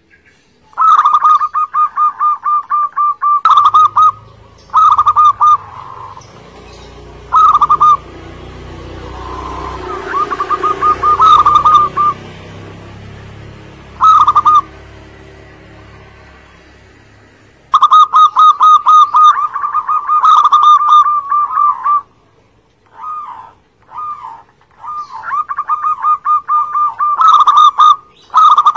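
Zebra dove (perkutut) song: rapid runs of short cooing notes, coming as long trilled phrases and shorter bursts. A low background rumble runs under the first half.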